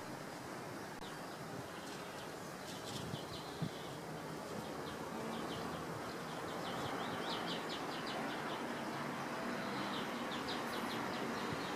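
Outdoor ambience: a small bird chirping in quick runs of short high notes, over a steady background hiss.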